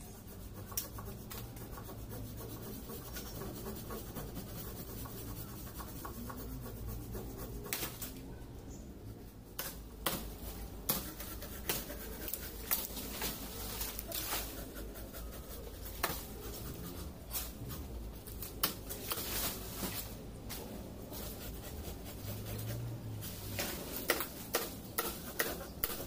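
Leaves and branches of a tree rustling and crackling as they are handled and climbed through, with scattered sharp clicks and snaps, more frequent in the second half, over a low steady hum.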